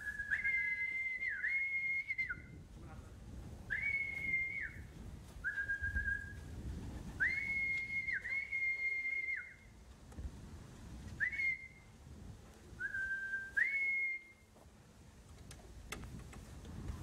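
A man whistling to call homing pigeons down onto the loft: short phrases that jump between a lower and a higher note, repeated several times with pauses, stopping about three-quarters of the way through.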